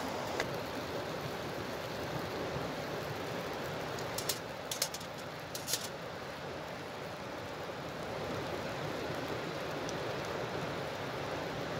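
Steady rushing hiss, with a few sharp light clicks about four to six seconds in.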